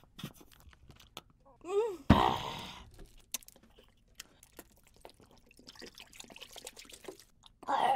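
A short pained moan and a loud breathy exhale about two seconds in, from the burn of the super-hot chili chip. Then scattered small clicks of a plastic water bottle being handled. Near the end, water is poured straight into an open mouth and spills over.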